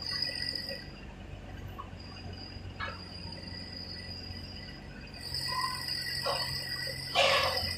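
Mini excavator's small diesel engine running with a low steady hum under a steady high-pitched whine, with a few short knocks, the loudest near the end.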